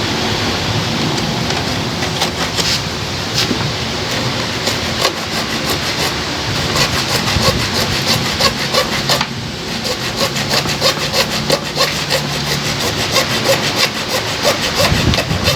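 Plastic of a Toyota Vios tail light being cut by hand, a steady run of rasping back-and-forth sawing strokes.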